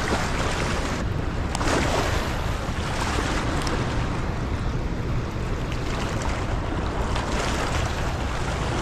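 Floodwater rushing over a spillway, a steady churning white-water wash, with wind buffeting the microphone.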